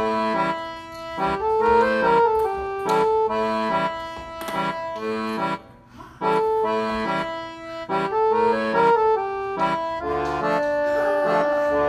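Background music: an instrumental tune whose short melodic phrase over chords repeats about every two seconds, settling into held notes near the end.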